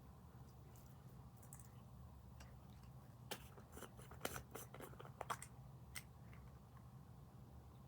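A quick run of about ten light clicks and taps, like small hard objects being handled, starting about three seconds in and stopping about two and a half seconds later, over a faint steady low hum.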